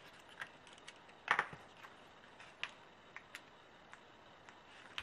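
Scattered small clicks and taps from handling a sheet of mini foam dimensionals and a pen-shaped craft tool over a work table, with one sharper knock about a second in.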